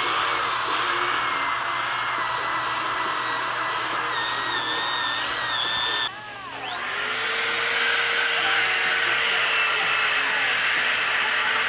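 Electric hand sander running steadily as it sands old paint off a fiberglass centerboard, its motor whine wavering slightly in pitch. About six seconds in the sound drops off suddenly, then a sander builds back up over a second or so and runs steadily again.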